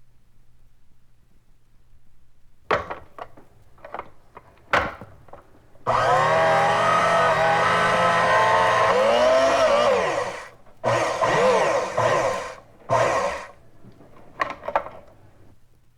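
A small electric motor appliance: a few clicks and knocks, then the motor runs steadily for about four seconds and winds down with a falling pitch as it is switched off, followed by two short bursts of running and a few final clicks.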